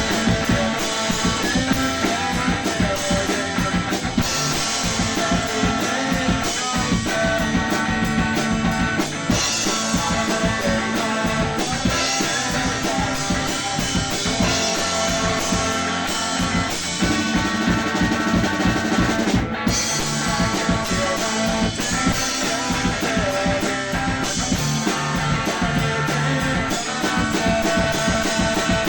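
Rock music without vocals: a drum kit and electric guitars playing a steady, loud instrumental passage.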